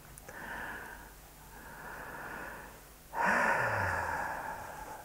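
An elderly woman breathing out audibly three times. The third breath is the loudest, a sigh with a short low voiced sound in it.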